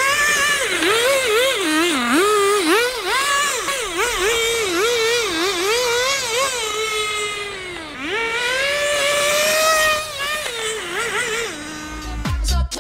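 FTX Banzai nitro RC car's small two-stroke glow engine revving up and down in quick throttle bursts as the car drives, with one long drop in revs and a climb back partway through, settling lower near the end. Music with a beat comes in just before the end.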